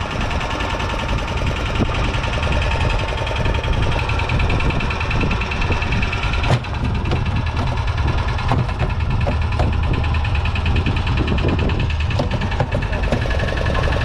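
Fishing boat's engine running steadily with a fast, even mechanical pulse; one sharp knock about halfway through.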